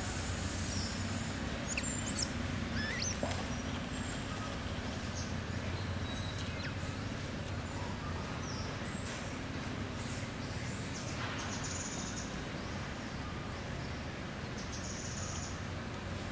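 Steady low hum with scattered high, quick chirps and squeaks from small animals. A cluster of gliding chirps and a sharp click come about two seconds in, and a couple of brief high trills follow later.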